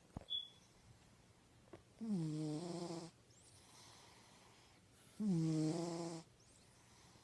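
A sleeping cat snoring: two drawn-out snores about three seconds apart, each about a second long, starting a little higher in pitch and settling lower. A short, high chirp comes right at the start.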